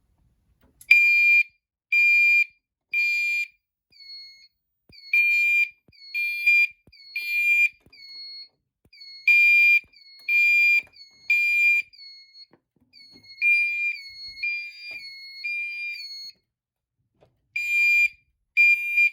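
Fire alarm horns (Gentex horn strobes) sounding the code 3 temporal pattern: three beeps about a second apart, then a pause, repeating, at about 2400 Hz. A second set of horns sounds shorter beeps, each ending in a dip in pitch, out of sync with the first.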